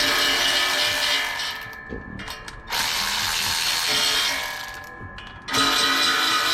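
Ratchet wrench turning out exhaust header bolts: three long runs of rapid ratcheting, each lasting a second and a half to two and a half seconds, with short pauses between them.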